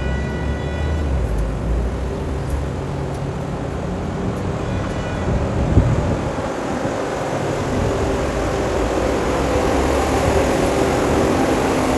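A rubber-tyred rapidKL monorail train running along its elevated concrete beam: a steady rumble with a brief high whine near the start and again about five seconds in, and a single knock about six seconds in. It grows a little louder toward the end as the train comes closer.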